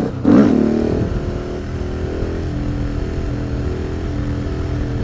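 Husqvarna 701's single-cylinder engine gets a sharp burst of throttle about a third of a second in, lofting the front wheel in third gear. It is then held at steady revs through a high wheelie.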